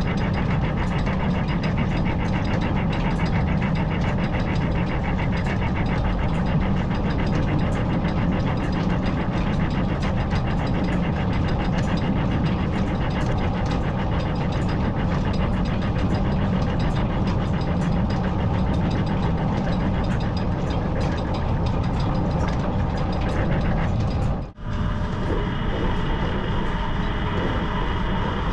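Belt-driven metal lathe running, its tool turning the outside diameter of a thin-walled bushing: a steady mechanical running noise with fast, dense ticking. Near the end there is a brief break, after which the cut carries higher ringing tones.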